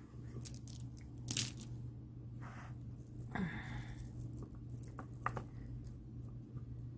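Stone bead necklace being handled: light clicks and rustles as the beads knock together and brush the burlap display, the loudest clack about a second and a half in and a few more around five seconds in.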